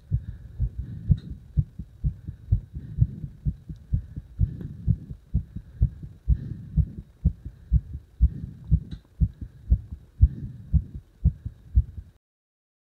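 A heart beating strongly, recorded close up: a quick, steady run of low thumps that stops abruptly near the end.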